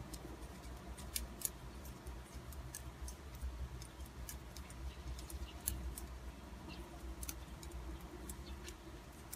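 Steel double-pointed knitting needles clicking lightly against each other as stitches are knitted, a scatter of soft irregular ticks.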